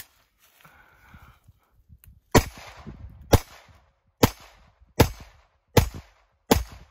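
Glock 44 .22 Long Rifle pistol fired six times at a steady pace, under a second between shots, beginning a little over two seconds in; each shot is a sharp crack with a short ring after it. A single click comes just before, at the very start.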